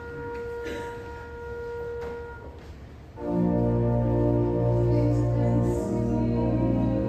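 Church organ music: a few soft held notes, then about three seconds in loud full chords with a deep bass come in, starting the music for communion.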